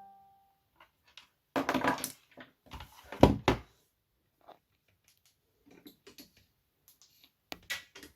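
A plastic wireless charging station being handled and moved on a hard surface: a few knocks and scraping clatters, the loudest about three seconds in, with smaller ones near the end.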